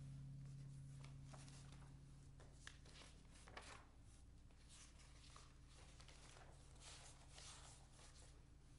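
The last chord of a 13-course baroque lute fading out over the first couple of seconds, then faint rustling of sheet-music pages being turned on a music stand.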